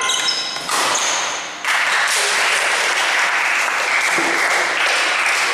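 Crowd in a hall cheering and applauding: shouts at first, then steady, dense clapping from about two seconds in.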